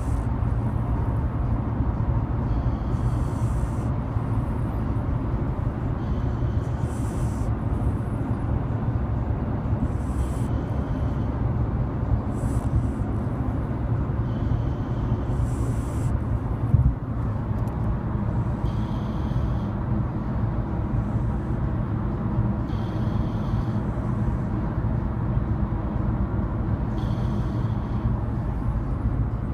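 A man and a dog snoring in their sleep: a steady low rumble with hissy breaths returning about every three to four seconds. There is one brief knock partway through.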